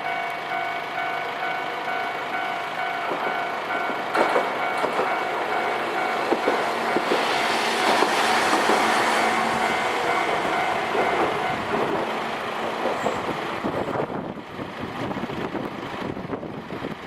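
Japanese level-crossing warning bell ringing with a steady pitched tone while a Hankai Tramway tram crosses, its wheels clacking over the rail joints and loudest about eight seconds in. The bell stops about twelve seconds in, and the tram's noise fades into quieter road noise.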